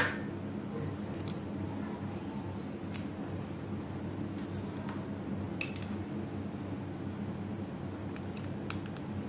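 A handful of light, spread-out clinks and taps of a steel spoon and small glass bowls against a marble mortar and stone countertop as lime, mint leaves and sugar are added, over a steady low background hum.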